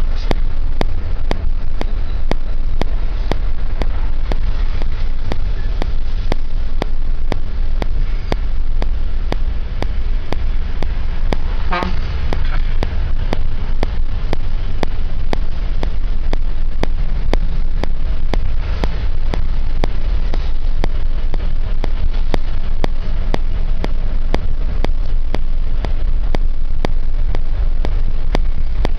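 Steady low rumble of a moving vehicle's engine and road noise heard from inside, with one brief, sharper pulsed sound about twelve seconds in.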